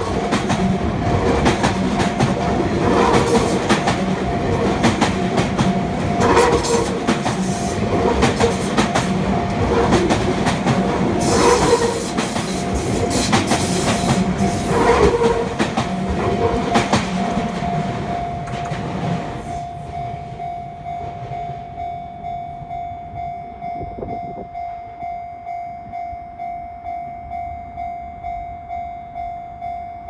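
Sotetsu New 7000 series electric train passing over a level crossing, its wheels clacking over rail joints, until it clears about two-thirds of the way through. Throughout and after, the crossing's warning bell keeps ringing in an even, repeating pulse, a little faster than once a second.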